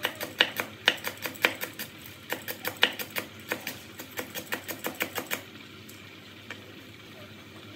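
Cleaver blade slicing lemongrass into thin rings on a wooden cutting board: quick, even knocks of the blade on the wood, about five a second, stopping about five seconds in.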